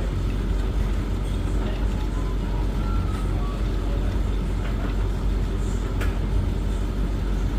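Laundry appliance running with a steady low rumbling hum.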